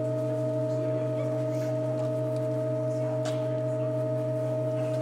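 Pipe organ holding a sustained chord: several pipe tones sounding together, steady and unchanging, with a low tone underneath.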